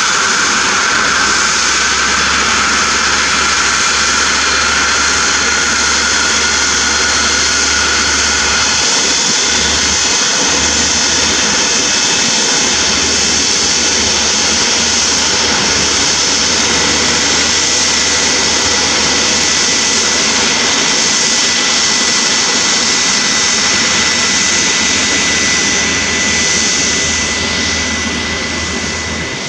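Airbus A321neo's twin turbofan jet engines running at low ground power, a steady loud rush with high whining tones. One whine fades out in the first third and a higher one comes in around the middle.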